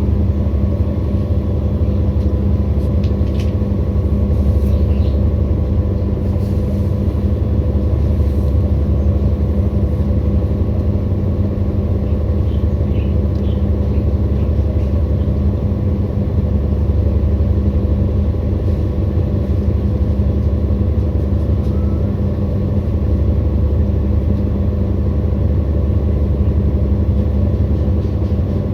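Washing machine on its spin cycle: a steady, deep rumble with a constant motor hum, the low drone swelling and easing slightly now and then.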